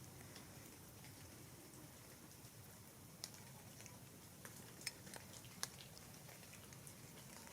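Near silence in the woods, with a few faint scattered ticks of raindrops dripping in a light drizzle.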